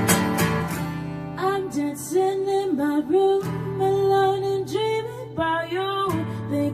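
Acoustic guitar strummed in quick strokes, then from about one and a half seconds in a woman's voice singing long held, gliding notes over sustained guitar chords: a solo singer-songwriter song.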